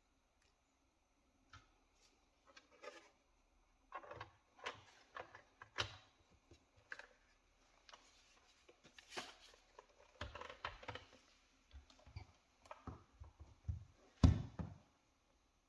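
Irregular clicks, taps and knocks of hands handling a laptop and small hardware, sparse at first and busier after about four seconds, with one louder thump near the end.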